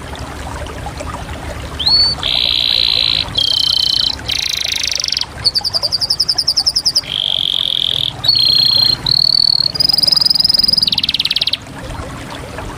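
Domestic canary singing: a run of rolled, trilled phrases, each about a second long and changing in pitch from one phrase to the next, with a fast pulsing trill about halfway through. The song starts about two seconds in and stops shortly before the end.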